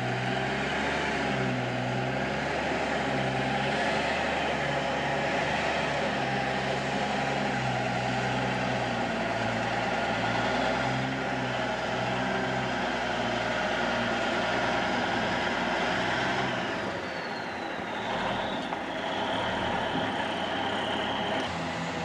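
Diesel engine of a loaded 1975 Dodge Bighorn logging truck running as the truck drives, its pitch shifting up and down. About sixteen seconds in the engine sound quietens and a high whine glides down, then holds steady for a few seconds.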